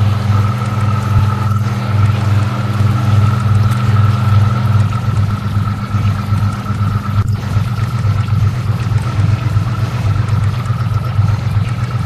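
Experimental electronic soundtrack built from dishwasher sounds: a steady mechanical drone with low generated tones pulsing evenly as beat frequencies, a thin steady high tone and a hiss of water-like noise over it.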